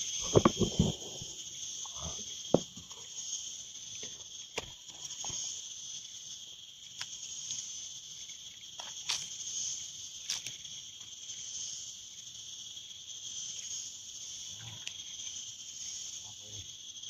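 Steady, high-pitched chorus of insects droning without a break. A cluster of loud knocks and scuffs comes in the first second, and one sharp knock about two and a half seconds in.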